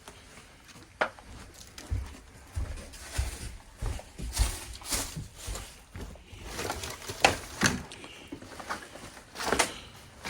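Irregular knocks and sharp clicks, with a run of low thumps from about two seconds in, the sound of objects being handled and knocked together among clutter.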